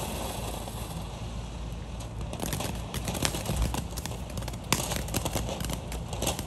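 Small ground fountain firework spraying sparks with a steady hiss, joined about two and a half seconds in by dense, irregular crackling pops.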